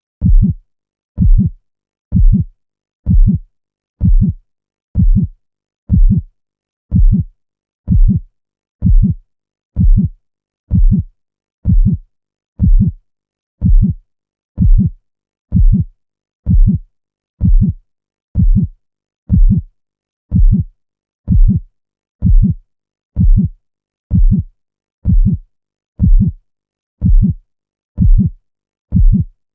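Heartbeat playing a steady lub-dub, a deep double thump repeating about once a second, roughly sixty beats a minute.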